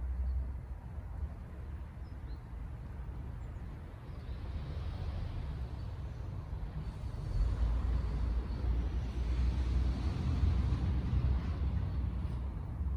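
A road vehicle passing: its noise builds from about four seconds in and eases near the end, over a steady low rumble.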